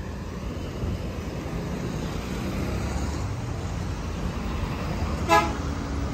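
Coach bus engine idling at the kerb, with traffic passing on a wet road. About five seconds in there is one short horn toot.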